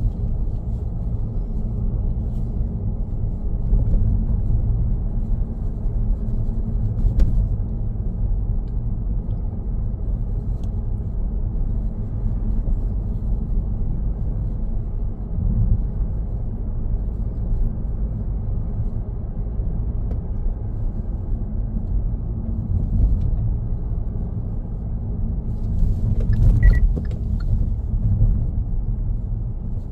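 A car being driven: a steady low rumble of road and engine noise, with a few brief knocks and a louder rattle of them near the end.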